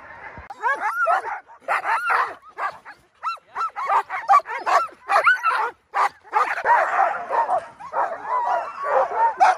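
A team of Alaskan husky sled dogs in harness yipping, whining and barking excitedly, many quick overlapping calls that begin about half a second in.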